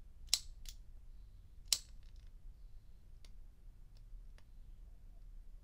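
Vintage Penguin Superlative automatic petrol lighter being worked by its thumb lever, which flips the lid up and spins the flint wheel to light it: three sharp metallic clicks in the first two seconds, the third the loudest, then a few faint ticks while it burns.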